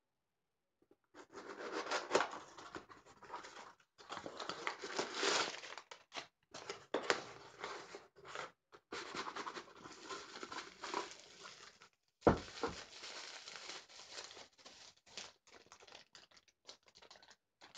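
A mailing envelope being torn open and crinkled by hand: stretches of rustling and ripping with many small crackles and short pauses. A single sharp knock about twelve seconds in.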